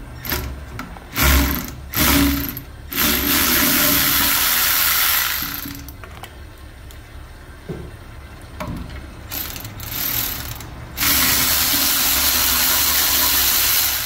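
Milwaukee cordless electric ratchet running in several short bursts, then in runs of about three seconds each, backing bolts out of a cast-iron strainer housing.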